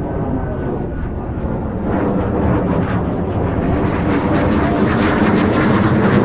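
Airplane engine running steadily, growing somewhat louder through the clip.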